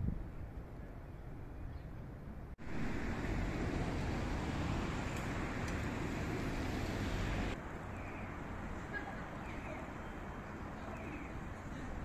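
City street traffic noise, a steady rumble and hiss that jumps louder about two and a half seconds in and drops back abruptly about five seconds later. Faint short rising chirps repeat now and then in the quieter second half.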